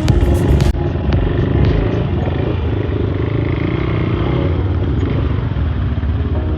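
Off-road motorcycle engine running steadily while riding, with a few sharp knocks in the first second.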